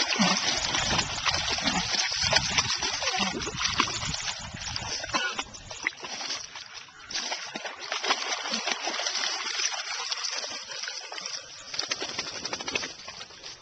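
Dogs sloshing and splashing in shallow muddy water, one wallowing and rooting at the bank: a continuous, uneven run of splashes and dribbling water, easing off briefly about six seconds in.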